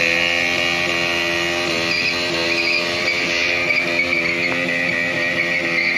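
A KTM Duke's single-cylinder engine running at steady, held revs as the motorcycle rolls slowly away.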